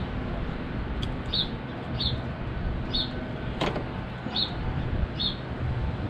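A small bird chirping over and over, short high notes about once a second, over a steady low background rumble. A single sharp click comes a little past halfway.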